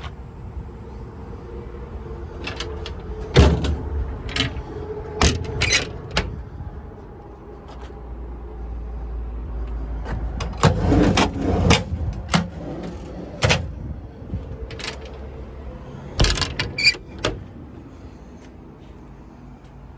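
Power windows and power door locks of a 2009 International DuraStar cab being worked: a window motor's steady whine in two spells, with many sharp clicks and knocks from the locks, door and handles.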